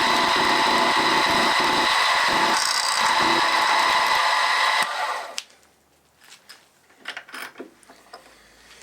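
Milling machine running with a steady high whine while the end mill cuts brass stock, with a rough, uneven chatter from the cut underneath. About five seconds in the machine is switched off and winds down, followed by a few faint clicks of metal being handled.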